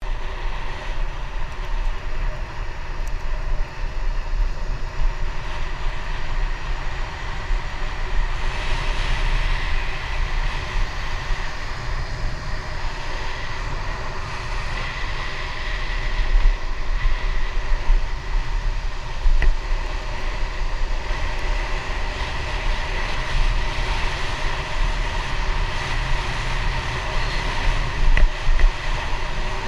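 Wind buffeting a helmet-mounted GoPro camera while cycling, with road noise from the bicycle tyres: a steady heavy rumble with a few louder gusts and a faint steady high tone through it.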